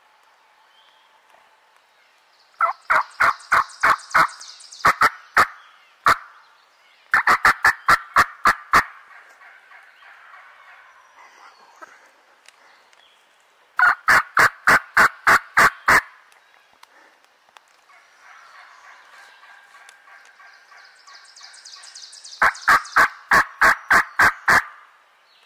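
Turkey yelping: four loud runs of about eight to ten evenly spaced yelps each, with softer calling in between.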